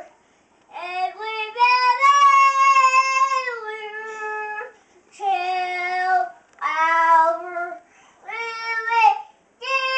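A young boy singing opera-style, holding long high notes in several phrases with short breaks between them.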